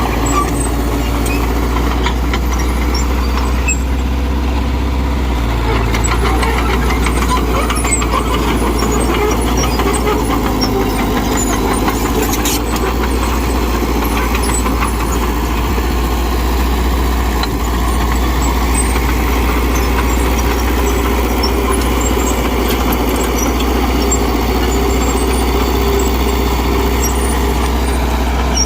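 Mitsubishi BD2G bulldozer's diesel engine running steadily, with one sharp click about twelve seconds in.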